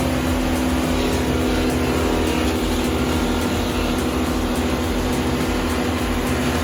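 Engine of a brush chipper running steadily with an even, unbroken hum.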